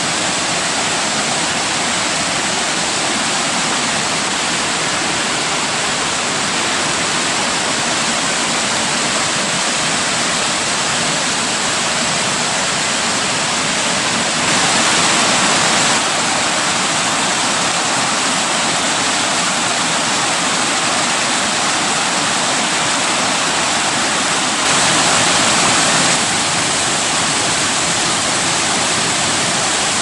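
A rocky mountain stream rushing over boulders through rapids and small cascades, a steady, loud rush of water. It gets briefly louder twice, at about the middle and again some ten seconds later.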